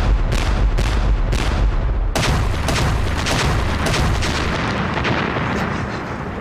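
Artillery barrage: a battery of wheeled field guns firing and shells exploding. Several separate blasts come in the first two seconds, then a dense run of blasts over a deep rumble that slowly fades.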